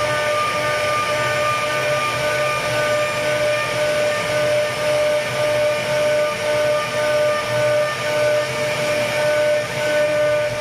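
Automated CNC router's spindle running with a steady high whine over a hiss as it carves a wooden door panel.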